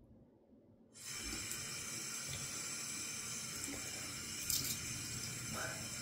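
Bathroom sink tap turned on about a second in, water running steadily into the basin for face washing.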